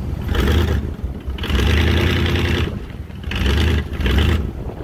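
1952 Muntz Jet's Ford flathead V8 revved in four blips of the throttle, the second held longest, dropping back between them.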